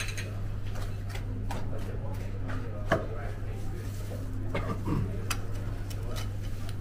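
Knife blade knocking and tapping on a cutting board while a large bluefin tuna is butchered, with one sharp knock about three seconds in, over a steady low hum.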